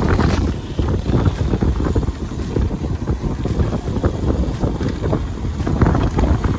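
Wind buffeting the microphone of a camera on a trail motorcycle riding downhill, a continuous gusty rumble.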